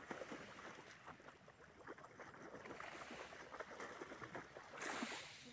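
Small waves lapping at the shore, an irregular faint splashing and crackling, with one louder wash near the end.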